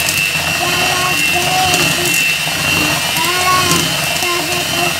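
Electric hand mixer running steadily with a high whine, its beaters whisking margarine and egg yolks in an enamel bowl. A young child's high voice is heard now and then over the motor.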